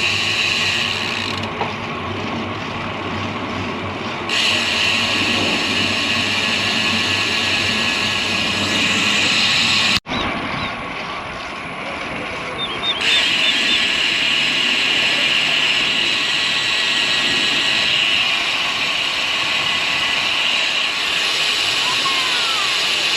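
Steady wind and road noise from riding a road bicycle, heard through a bike-mounted action camera's microphone. The high hiss cuts in and out abruptly several times, and the sound drops out for an instant about ten seconds in.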